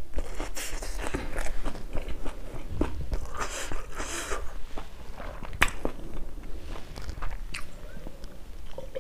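Close-miked mouth sounds of a person chewing a crunchy raw-vegetable singju salad, with wet clicks and short crunches, busiest about halfway through.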